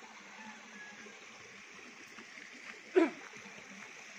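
Steady wash of a small rocky mountain stream flowing. About three seconds in, one short, loud sound stands out above it.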